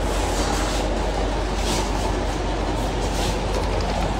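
Electric fans running: a steady whir of motor hum and moving air.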